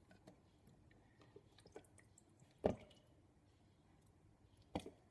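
Faint small handling sounds of artichoke stems being peeled by hand, with two knocks, one about halfway through and one near the end.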